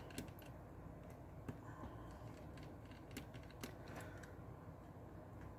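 Faint, irregular light clicks and taps of small repair tools and parts being handled on a work surface during a phone repair, with a low steady hum underneath.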